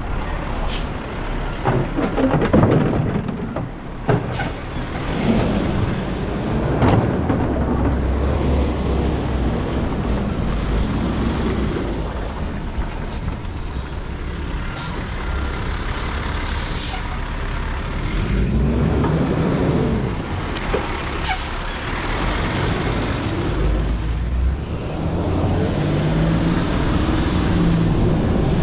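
Garbage truck engine running steadily, with scattered metal clanks and a short hiss of air brakes about two-thirds of the way through; the engine revs up and back down shortly after.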